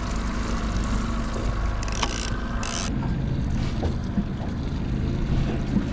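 Small boat's outboard motor running steadily at trolling speed, with wind on the microphone; a short hiss about two seconds in.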